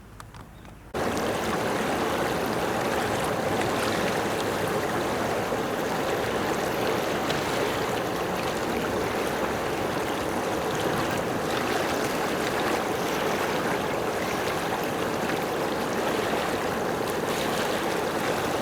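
Steady rush of running water that starts abruptly about a second in and keeps an even level.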